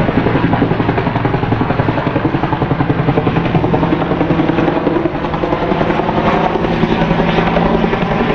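Bell 205 'Huey' helicopter flying overhead, its two-bladed main rotor beating with a rapid, even pulse: the blade slap the type is nicknamed 'Teppichklopfer' (carpet beater) for.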